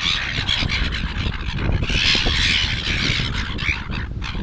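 A flock of seagulls squawking and squealing over scraps of food. The harsh calls overlap, loudest at the start and again about two seconds in.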